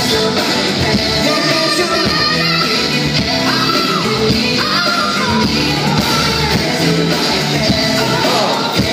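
A pop backing track playing through the PA with a male voice singing live over it, a vocal sound check with the track.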